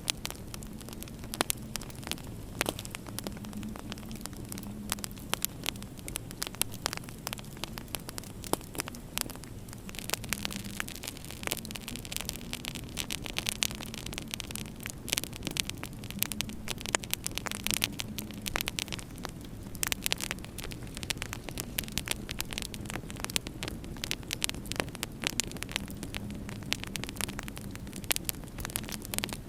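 Wood fire crackling in a fireplace, a dense run of sharp pops and snaps, over a steady low hum.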